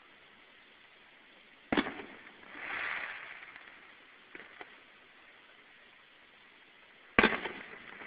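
Aerial firework shells bursting at a distance: a sharp boom about two seconds in and another near the end, each dying away over about half a second. Between them a softer noise swells and fades, and there are a couple of faint pops.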